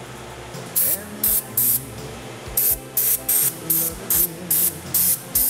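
Aerosol can of valve train assembly lube spraying in about eleven short, quick squirts onto roller rocker arms.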